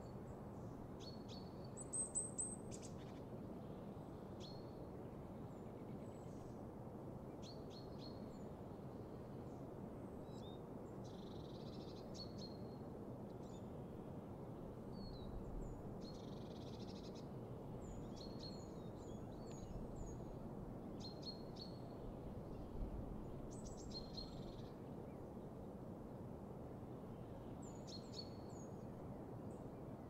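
Birds chirping and calling in a spring meadow-and-woodland soundscape: many short, high calls scattered throughout, with a brief high trill about two seconds in, over a steady low background hiss.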